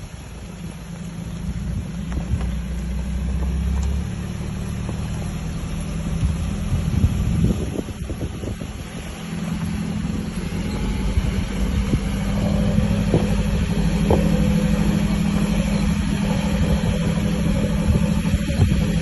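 Vehicle engine running steadily while driving, getting louder about halfway through, with a few short knocks.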